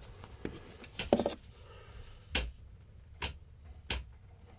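A few sharp clicks and taps from handling at a boat's solar charge controller, the last three spaced about a second apart, with one louder, briefer sound about a second in.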